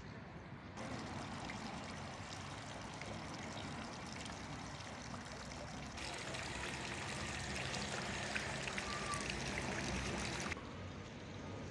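Small park fountain's water trickling and splashing from its bowl into a stone basin. The splashing grows louder and brighter about six seconds in and drops back sharply near the end.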